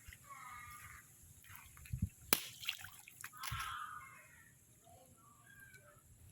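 Shallow water sloshing and splashing, with scattered drips, a sharp click a little after two seconds and short high-pitched calls near the start and in the middle.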